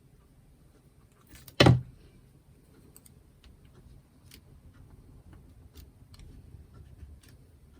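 A single dull thump on the craft table about one and a half seconds in, with scattered light ticks and taps of hand work on paper around it.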